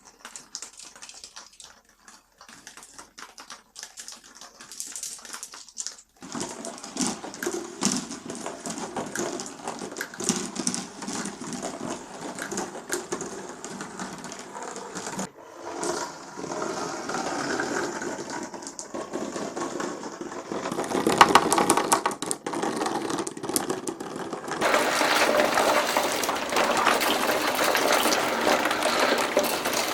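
Glass marbles rolling along a marble run and clacking against the track and each other. A few scattered clicks at first, then a dense, continuous rattle of many marbles from about six seconds in, which gets louder near the end.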